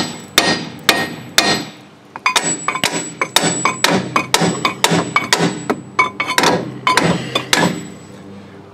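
Hammer blows ringing off the steel steering knuckle at the base of a 2005 Mazda 3's front strut, knocking the rust-stuck strut loose. A few quick strikes, a short pause about two seconds in, then steady hitting at two or three blows a second that stops near the end.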